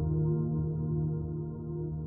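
Soft ambient background music with long held notes, slowly fading.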